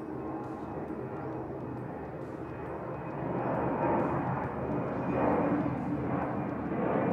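Airplane flying over, its engine noise growing louder about three seconds in.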